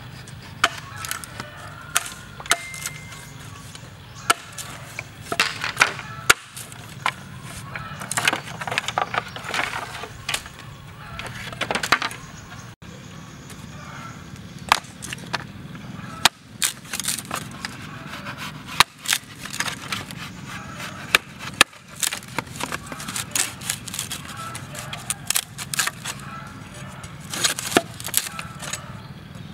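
Curved machete splitting and shaving green bamboo into strips: irregular sharp knocks and cracks as the blade bites and splits the culm, with longer stretches of splitting and scraping in the first half.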